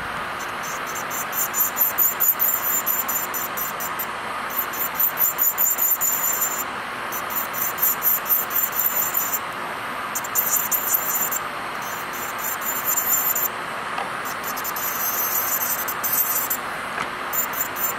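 Bandi electric nail drill running with a steady whine while its metal bit grinds base gel off a natural fingernail. The grinding comes as a high, scratchy hiss in repeated light passes one to two seconds long, dropping back to the motor's whine between them.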